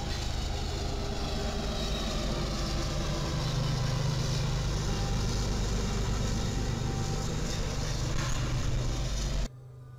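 Freight train passing with a mid-train diesel locomotive running: a steady low engine drone over the rumble of rolling cars. It cuts off suddenly about nine and a half seconds in.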